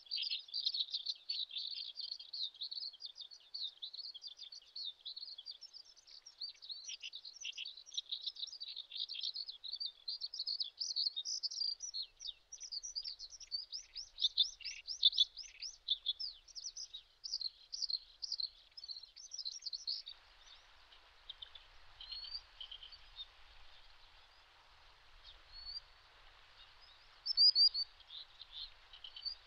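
Birds chirping: many rapid, high-pitched, overlapping chirps for about two-thirds of the time, then sparser chirps over a faint hiss.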